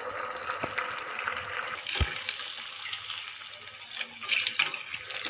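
Chowmein vadas deep-frying in hot oil in an aluminium kadai, a steady sizzling hiss with crackle. A single knock comes about two seconds in.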